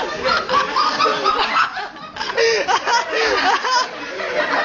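Several people laughing hard together. Wooden Jenga blocks clatter down at the start.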